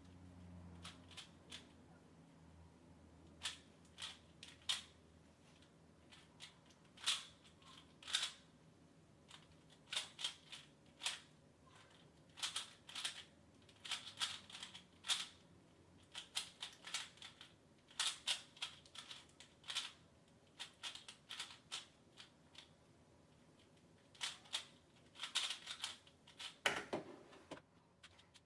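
A 3x3 Rubik's cube being turned fast by hand during a speed solve: bursts of quick plastic clicks and clacks as the layers snap round, with short pauses between bursts. A louder scraping sound comes near the end.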